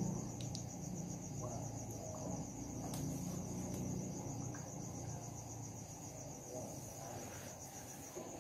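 A faint, steady high-pitched pulsing trill over a low background rumble.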